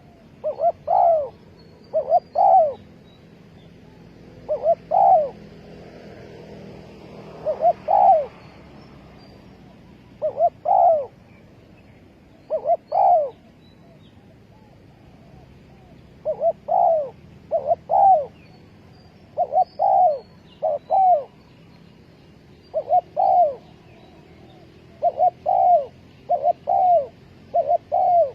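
Spotted dove cooing: short phrases of two or three low coos, each note rising and falling, repeated with pauses of a second or more between phrases. Faint high chirps of small birds sound behind them.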